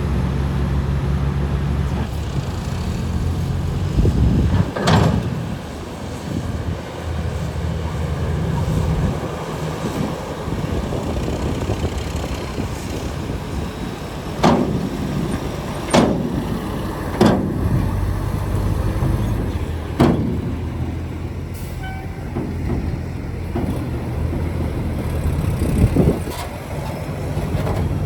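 Heavy diesel engine running steadily, with about six sharp knocks spread through it.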